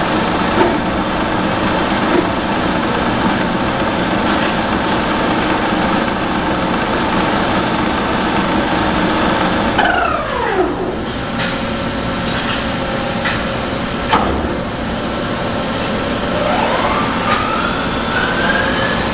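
Toshiba BTD-13 horizontal boring mill spindle running with a steady whine, then winding down with a falling whine about halfway through. A couple of sharp clicks follow, and near the end the spindle spins back up with a rising whine after being shifted into its lower gear range.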